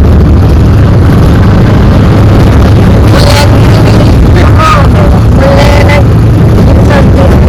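Auto-rickshaw engine running while on the move, with heavy wind rumble on the microphone and no let-up. A few short wavering pitched sounds come and go in the middle.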